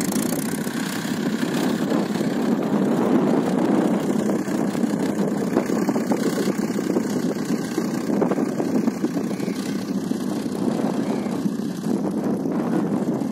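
Mahindra 585 Yuvo tractor's diesel engine running steadily under load while pulling a land leveller and cultivator.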